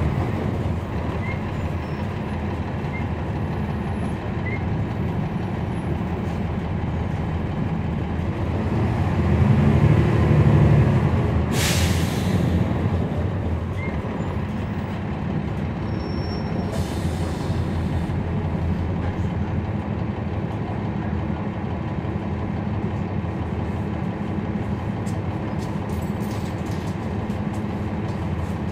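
Inside a 2011 NABI 40-SFW transit bus under way, its Cummins ISL9 diesel engine running steadily with a deep rumble. The engine swells louder for a couple of seconds about ten seconds in. A short hiss of air follows at about twelve seconds, and a fainter one comes several seconds later.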